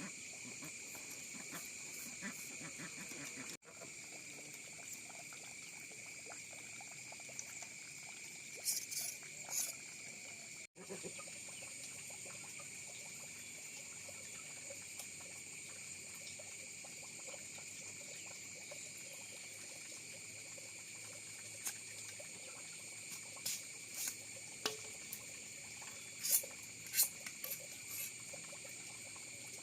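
Rural outdoor ambience of insects trilling steadily on high, even pitches, with a few short higher chirps around the middle and near the end. The sound drops out for an instant twice.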